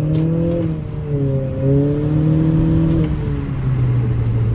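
2020 Honda Accord's turbocharged four-cylinder through a Borla S-Type aftermarket exhaust, heard from inside the cabin under acceleration. The engine note climbs, dips briefly about a second in, climbs again, then falls about three seconds in and settles lower.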